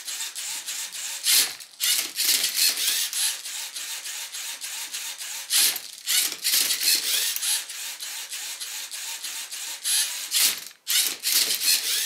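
LEGO Mindstorms NXT servo motors and plastic gears whirring and rattling as the Mindcuber robot turns and flips a Rubik's cube to scan its colours a third time. A steady mechanical rattle is broken by three louder clatters: near the start, mid-way and near the end.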